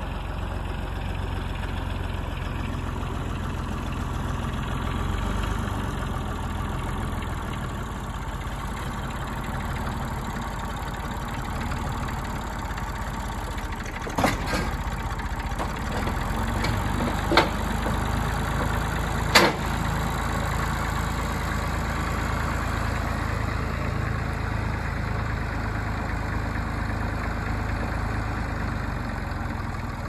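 Massey Ferguson MF35 tractor engine running steadily while its front loader works. About halfway through come three sharp knocks a few seconds apart, as logs drop into a wooden trailer.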